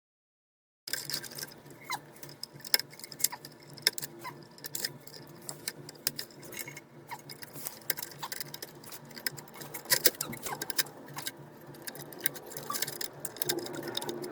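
Wire terminal connectors being pushed onto a circuit board by hand: irregular small clicks and taps with light scratching, over a faint steady low hum.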